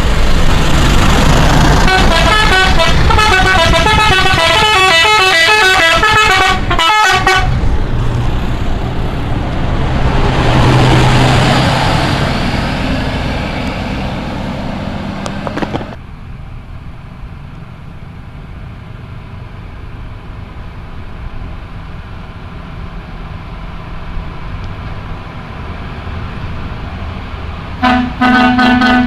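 Indonesian bus 'telolet' multi-tone horn playing quick stepping runs of notes like a short tune for several seconds, followed by the loud rumble of the bus engine and road noise. About halfway through the sound drops to a quieter steady traffic rumble, and near the end the telolet horn starts again in short blasts.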